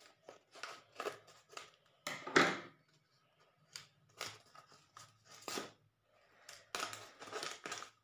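Scissors snipping through a paper package, and the paper rustling as hands handle it: a series of short, irregular snips and rustles, the loudest about two and a half seconds in.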